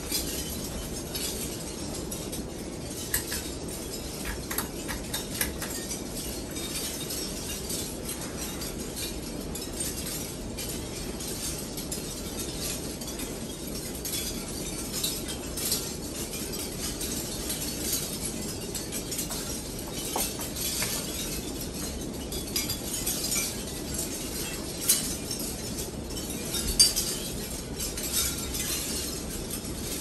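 52-inch Hunter Westminster ceiling fan running at speed: a steady rush of air from the blades, with scattered light clinks and ticks throughout and a louder clink near the end.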